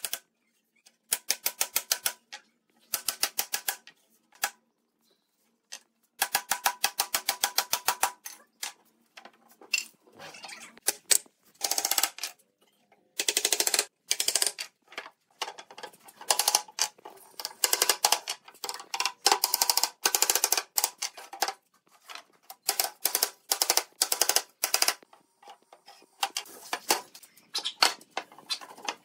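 Wooden mallet tapping on pine joinery in bursts of rapid light knocks with short pauses between, driving the slats and brackets of a bed rail home.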